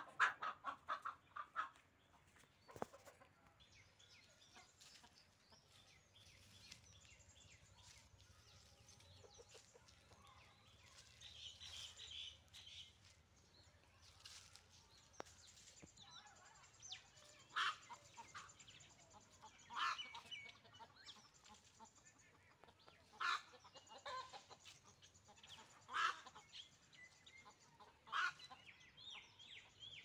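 Domestic hen calling: a quick run of agitated clucks and squawks in the first two seconds, then a quiet stretch, then single short clucks every two to three seconds through the second half. A faint high hiss lies underneath.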